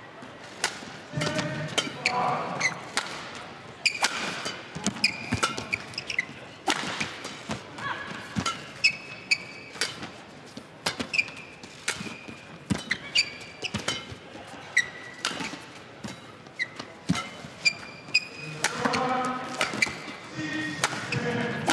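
Badminton rally: sharp racket strikes on the shuttlecock about once a second, with short high squeaks of court shoes on the floor between the shots.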